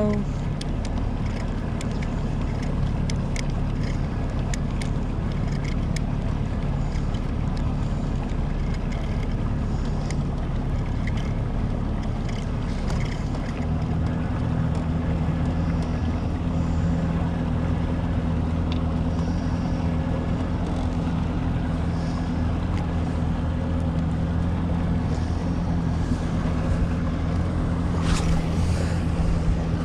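Boat motor running steadily while trolling, with wind noise on the microphone; about halfway through, its hum becomes stronger and steadier.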